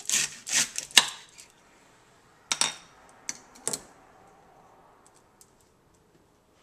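Kitchen knife chopping celery directly on a stone countertop: a quick run of about four sharp chops in the first second, then a few separate knocks a couple of seconds later.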